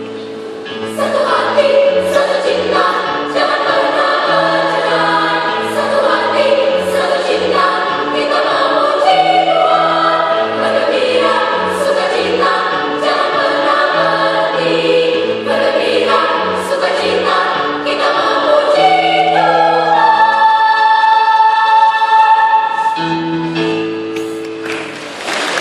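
Children's choir singing a sacred song over held accompaniment chords, ending a phrase on a long held note about twenty seconds in.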